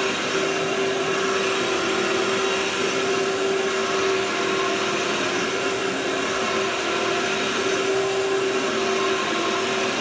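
Canister vacuum cleaner running steadily, its power nozzle being pushed slowly back and forth over carpet: a steady motor whine over the rush of air.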